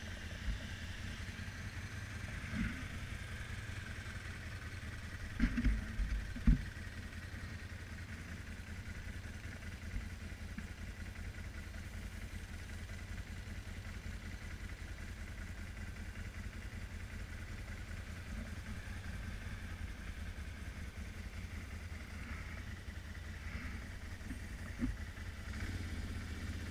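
ATV engine idling steadily, with a few short knocks about five to six seconds in.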